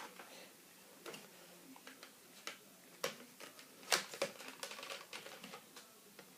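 Irregular plastic clicks and knocks as a Nerf blaster attachment is worked and pushed onto the gun, with the loudest click about four seconds in.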